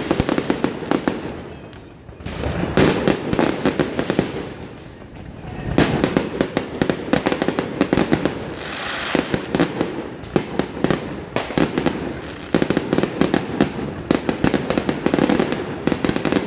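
Fireworks display: rapid volleys of bangs and crackles coming in waves, easing off briefly about two and five seconds in before building again.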